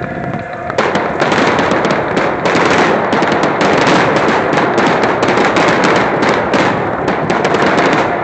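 Fireworks crackling loudly: a dense, rapid string of sharp pops starts about a second in and stops near the end.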